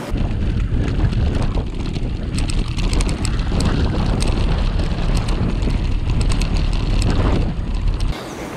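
Wind buffeting the microphone of a camera riding on a bicycle, over the rumble of tyres rolling on a dirt forest track, with small clicks and rattles. It starts suddenly at the beginning and cuts off suddenly near the end.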